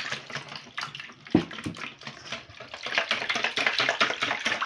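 A silicone-coated whisk beating eggs and water in a stainless steel bowl, making rapid wet sloshing strokes. The strokes ease off about a second in, with one knock against the bowl, then pick up fast and steady again.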